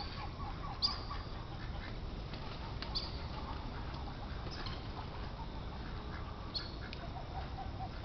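Ducks calling at a pond, with a few short, sharp high chirps standing out over steady outdoor background noise.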